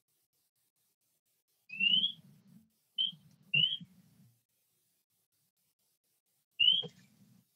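A bird calling: short rising whistled chirps, one about 2 seconds in, two more close together a second later and a last one near the end, each with a faint low rumble of background noise.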